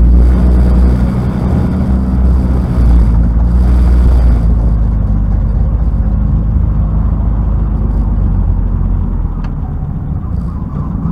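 2005 Dodge Neon race car's 2.0 single-cam four-cylinder engine running at low speed, heard from inside the car; it eases off about four seconds in and drops lower near the end as the car slows.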